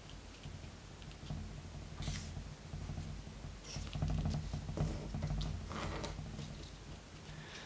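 A stiff elephant-hide paper strip being handled and folded by hand: soft rustling and scraping of paper under the fingers, with a few short crinkles as a fold is creased, about two seconds in and again between four and seven seconds in.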